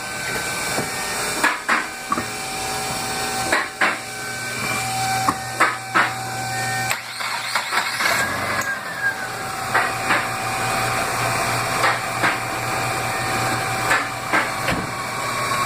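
Car engine being started on a freshly installed battery, catching about halfway through and then running steadily while its charging system is tested. Sharp clicks and knocks sound at intervals.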